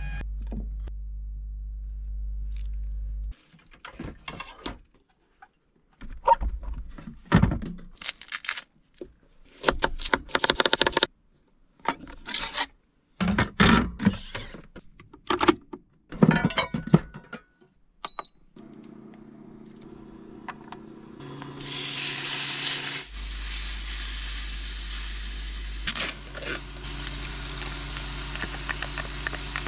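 Cooking sounds: utensils and dishes clinking and scraping in scattered bursts, then food starting to sizzle in a frying pan about two-thirds of the way through, over a low steady hum.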